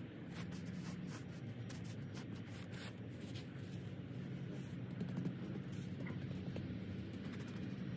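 Gritty scraping and scratching of sand and small pebbles being pushed and packed by hand around the edges of a concrete paver, in many small irregular strokes.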